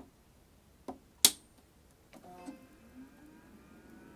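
Macintosh SE/30's rear power switch clicked on with one sharp click about a second in, then the machine starts up with a low hum and a faint whine that slowly rises in pitch as its drive and fan spin up. No startup chime sounds: this is the fault being chased, along with a screen that shows only one horizontal line.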